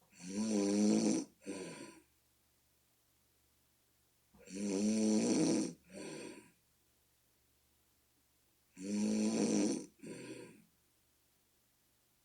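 A person snoring, three snores about four and a half seconds apart, each a loud rattling breath of over a second followed by a shorter, quieter one. The snorer likens the sound to a bullfrog.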